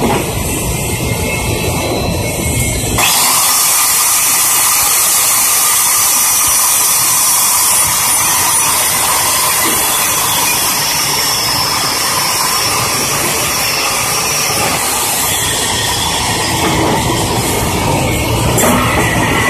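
Handheld angle grinder grinding a weld on a steel plate: a low rumble, then from about three seconds in a loud, steady, high hiss as the disc works the metal.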